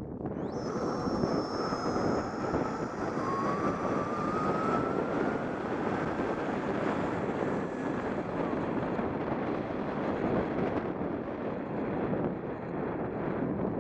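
Wind buffeting the microphone of a helmet-mounted camera while riding an electric bike. A thin whine from the bike's electric motor rises slowly in pitch over several seconds as the bike picks up speed.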